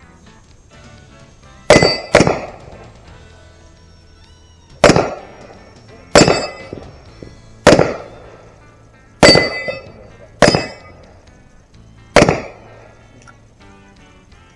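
Eight pistol shots at a steel Texas Star target, each sharp crack followed by a brief clang of the steel plates ringing. The first two come close together about two seconds in, and the rest follow at a slow, even pace of a shot every second and a half or so.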